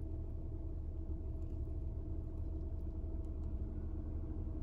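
Steady low mechanical rumble with a faint constant hum over it, and a few faint ticks.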